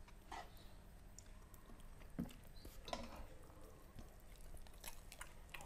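Quiet eating sounds: chewing and lip smacks from people eating stir-fried chicken liver and chicken feet by hand, with a few short sharp clicks at irregular moments over a faint low hum.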